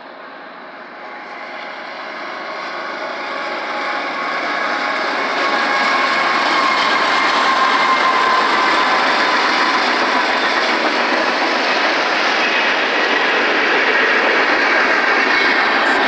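Freight train with GE diesel locomotives, a BNSF ES44C4 leading and a CSX C44-9W, running and passing close by: engine noise and steel wheels on rail. It grows steadily louder over the first six seconds as the locomotives approach, then holds a loud, steady noise with a few faint steady tones as the units and freight cars roll past.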